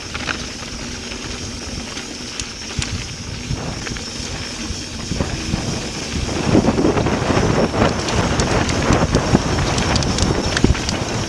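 Mountain bike rolling fast down a dirt trail: tyres on loose dirt, the bike rattling and knocking over bumps, and wind on the microphone. It gets louder about six seconds in as the speed picks up.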